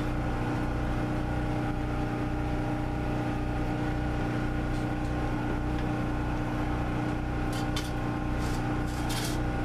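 An engine or motor running steadily, a constant hum with a slow, regular low throb. A few light clinks near the end.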